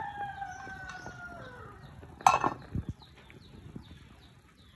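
Rooster crowing: one long call that slides slowly down in pitch and trails off about a second and a half in. A brief, loud, harsh sound follows about two seconds in, and faint quick chirps repeat high up throughout.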